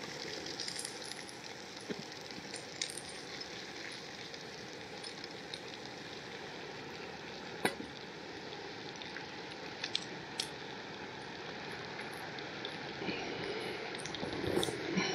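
Brown trout frying gently on low heat in a small pan on a Jetboil gas burner: a steady soft sizzle, with a few sharp clicks, the loudest about halfway through.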